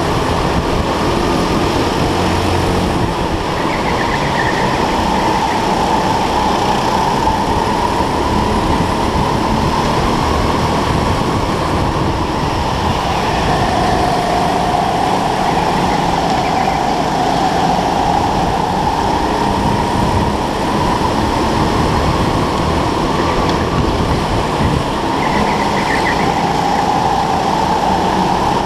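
Onboard sound of a racing go-kart at speed: steady drive noise with a whine that falls and rises in pitch as the kart slows into and accelerates out of the corners.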